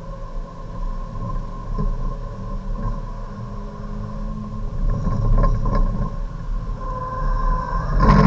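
Hyundai Avante Cup race car's engine at full throttle, heard from inside the cabin, revving up through third gear and then shifting up to fourth. A louder burst of rattling noise comes just before the end.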